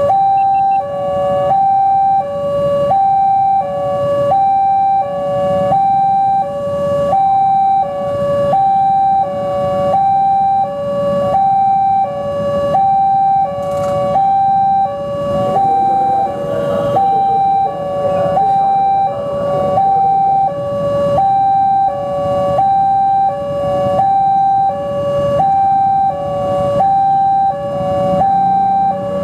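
Electronic two-tone warning siren of a railway level-crossing alarm, switching steadily back and forth between a lower and a higher tone, each held for a little under a second. It is the signal that a train is approaching and the crossing is closing.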